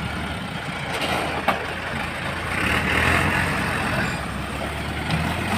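Mahindra tractors' diesel engines running under load as one tractor pulls another, bogged down with its rotavator, out of deep mud. There is a single short knock about a second and a half in, and the engine noise grows louder a little after halfway.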